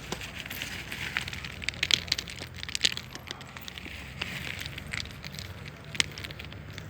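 Stones and gravel clattering in dense, irregular crackles, with a sharp knock near the end, over a low steady machine hum.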